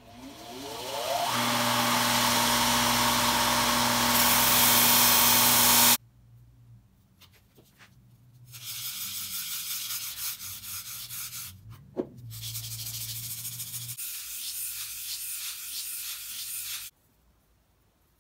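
A belt sander's motor is switched on with a click and spins up with a rising whine, then runs with a steady hum and hiss that cuts off suddenly. Then comes a flat steel hand-plane part being rubbed back and forth on sandpaper over a granite plate: rhythmic scratching strokes as the part is flattened.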